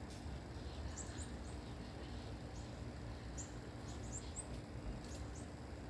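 Small birds chirping in the background: a dozen or so short, high, rising chirps scattered irregularly over a faint steady hum.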